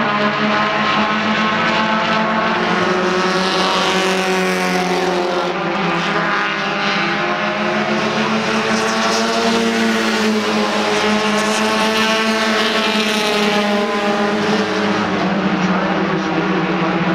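Several front-wheel-drive four-cylinder race cars running hard on track together, their engines at high revs. The engine pitch rises and falls as the cars lap past.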